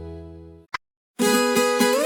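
Sertanejo music at a change of songs: a held chord fades out, there is a short click and half a second of silence, and then a new song begins on plucked viola caipira notes that slide in pitch.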